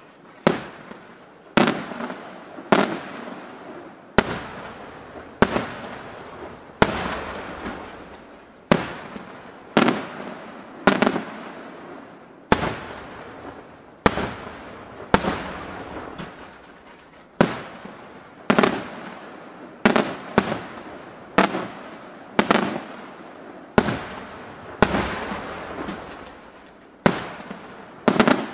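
Aerial firework shells bursting in quick succession, a sharp bang about every second, each trailing off before the next.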